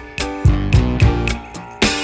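Music: guitar over a steady drum beat.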